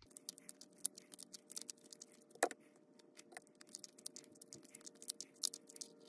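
Faint, irregular light clicking and ticking of a folding multi-tool's 3 mm hex key turning a retaining screw out of a bicycle dropper post, metal on metal. There is one louder click about two and a half seconds in.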